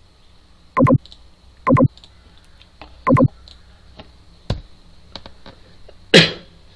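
Five loud, irregular clicks from operating the computer close to the microphone, the loudest near the end, while switching windows and changing slides.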